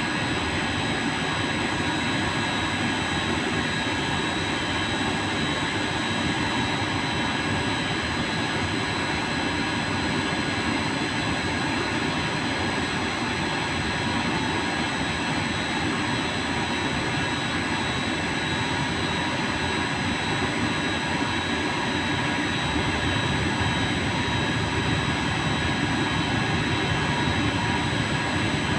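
TIG welding arc, a steady hiss and buzz with faint steady whining tones and no break, getting a little louder about three quarters of the way through.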